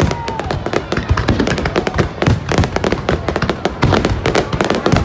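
Fireworks display: a dense, continuous barrage of bangs and crackles, with a brief whistle at the very start that dips slightly in pitch.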